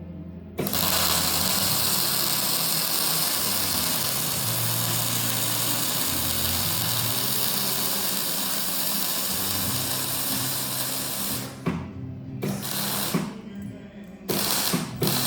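MIG welding arc crackling steadily for about eleven seconds as a bead is laid on steel box section, then stopping and giving three short bursts, like tack welds, near the end. Background music plays faintly underneath.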